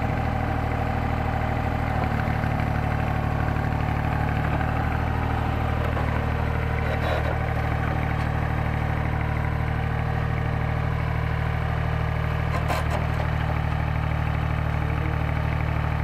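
Engine of a YBM-3000 tracked solar pile driver running steadily at idle, with a couple of brief knocks partway through.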